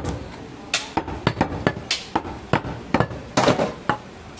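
Irregular, sharp knocks of a large butcher's knife striking a wooden log chopping block as goat meat is cut, a few a second, with a quick flurry of them about three and a half seconds in.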